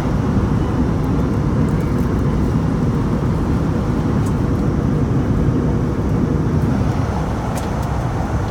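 Steady cabin noise of a jet airliner in flight, heard from a passenger seat: an even, deep rumble of engines and rushing air with no breaks.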